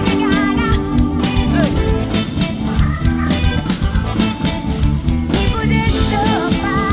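Live band playing: drum kit, bass, electric guitar and keyboards, with a woman singing short phrases near the start and near the end.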